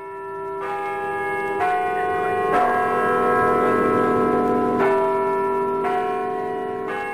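Church bells ringing, a bell struck about once a second, with the bells at different pitches and each tone ringing on under the next.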